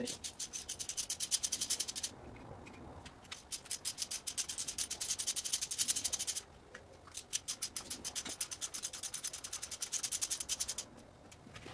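Socket ratchet clicking fast and evenly as the lower intake plenum bolts are backed out, in three runs with short pauses between them.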